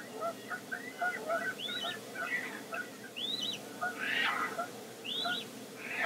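Caspian terns calling: a juvenile begging with repeated high, thin whistles that rise and fall, about once a second, over a busy run of shorter, lower notes, with a harsh rasping call about four seconds in.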